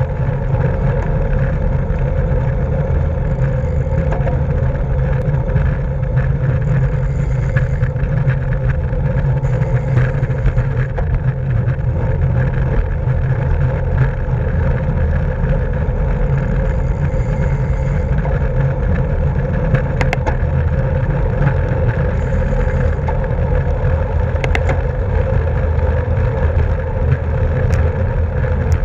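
Steady wind rumble over the microphone and road hum from a road bicycle at racing speed, with a few sharp clicks about twenty and twenty-four seconds in.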